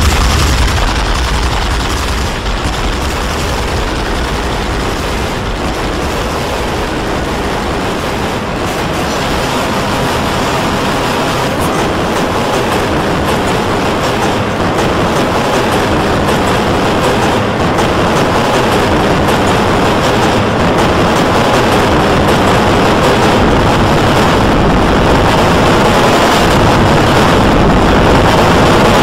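Loud, dense, harsh noise spread evenly from deep to high pitches, steady with no distinct events; it dips slightly in the first third and grows a little louder toward the end.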